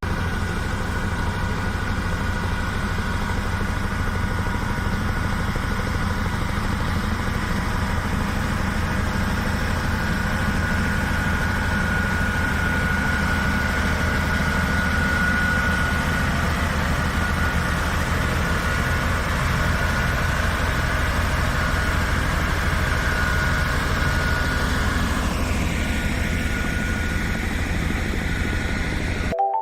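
Heavy construction machine's engine running steadily at a constant speed, with a steady high whine above the rumble.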